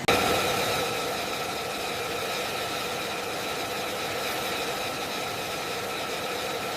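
Engine running steadily with a high whine made of several steady tones over a hiss.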